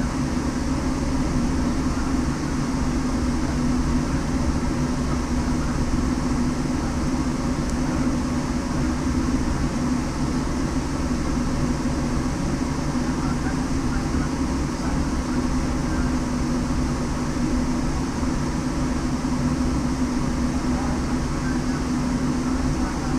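Steady vehicle drone with one constant humming tone and no revving.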